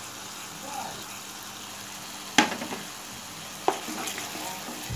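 Onion and ginger-garlic masala sizzling steadily in mustard oil in a pan while a spatula stirs it, with two sharp knocks against the pan, a little over a second apart, in the second half.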